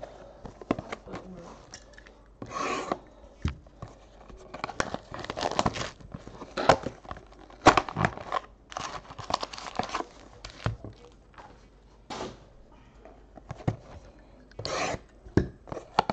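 Plastic shrink wrap being torn off sealed trading-card hobby boxes and the cardboard boxes handled and opened: an uneven run of crinkling, ripping and sharp clicks.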